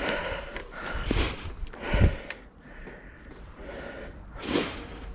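Mountain biker breathing hard while riding, a few sharp gasping breaths, the loudest about two seconds in.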